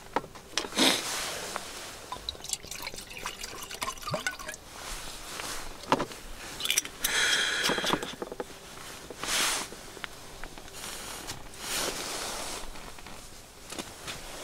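Shochu being poured from a bottle into a titanium mug, the pour about seven to eight seconds in, among clicks and knocks of the bottle being handled.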